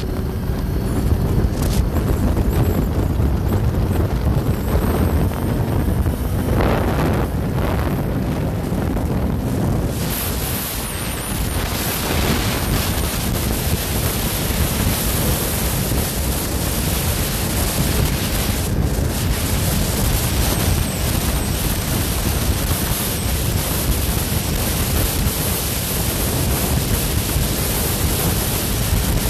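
Wind buffeting the microphone of a camera on a moving motorcycle: a heavy, steady rushing rumble. From about ten seconds in, a brighter hiss joins it.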